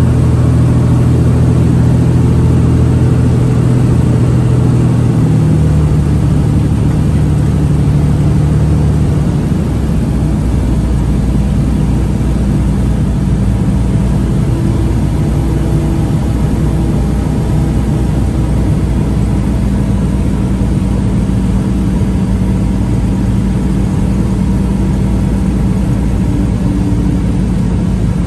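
Cessna T206's turbocharged piston engine and propeller droning steadily, heard inside the cabin. The engine note steps down in pitch about five seconds in and again near ten seconds, then holds lower and slightly quieter: power coming back for the descent to land.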